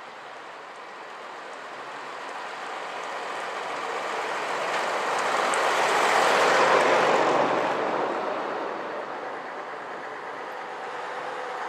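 Vintage double-decker bus driving past, its engine and tyres growing louder as it approaches, loudest about six to seven seconds in, then fading away. Another bus can be heard approaching near the end.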